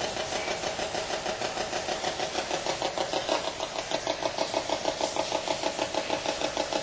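Ghost-hunting spirit box sweeping through radio frequencies: static chopped into a rapid, even pulsing, several pulses a second.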